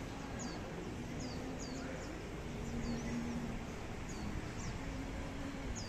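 Small birds chirping: short, high notes that each fall in pitch, repeated every half second or so over a steady low background noise.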